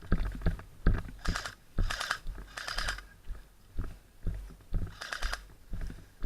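Four short bursts of rapid, evenly spaced clicking, typical of an airsoft electric gun firing on full auto, over irregular low thuds of footsteps and gear.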